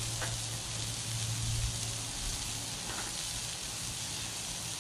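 Beef burger patties sizzling on a Blackstone flat-top griddle: a steady frying hiss, with a low steady hum underneath.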